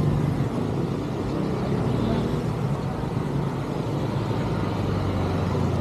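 A motor vehicle engine running steadily at an even pitch.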